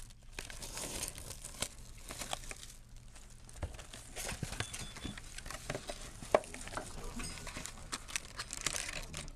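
Clear plastic shrink-wrap crinkling and tearing as it is stripped off a sealed box of trading cards, with irregular crackles and rustles as the wrap and box are handled.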